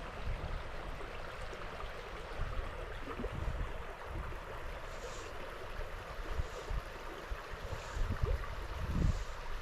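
Small stream flowing and rushing steadily, with irregular low buffeting on the camera microphone.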